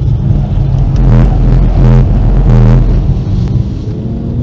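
Volkswagen Golf V 1.4 petrol four-cylinder engine, heard from inside the cabin, running hard under load as the car accelerates, with a steady low rumble of road and tyre noise.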